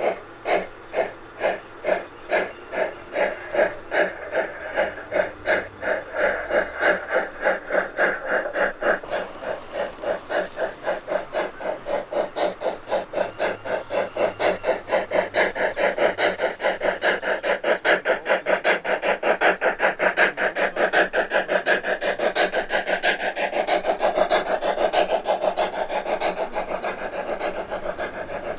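G-scale model steam locomotive chuffing. The exhaust beats speed up steadily from under two a second to about five a second as the locomotive gathers speed.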